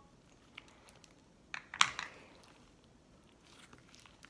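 Slime and clay-like putty being kneaded together by hand: small sticky crackles and clicks, with one much louder click a little under two seconds in.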